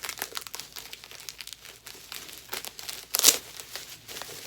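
Plastic bubble wrap and packing paper crinkling as they are pulled off a boxed Funko Pop figure, with a louder rustle about three seconds in.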